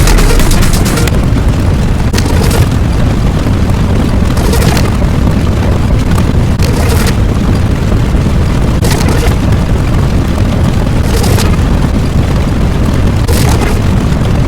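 Loud, continuous explosion-like rumble with crackling surges every second or two.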